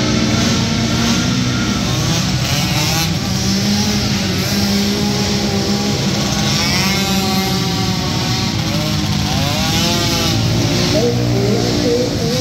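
Several small 50–90cc youth quad engines running together in a race, a steady drone with engine pitch rising and falling as riders get on and off the throttle, most clearly in the middle.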